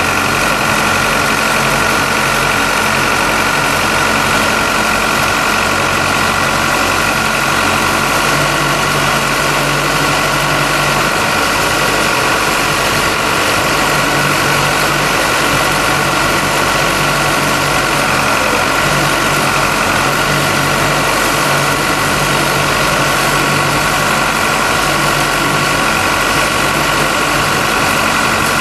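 A digger derrick truck's diesel engine runs steadily as its hydraulics raise the boom, with a steady high-pitched whine on top.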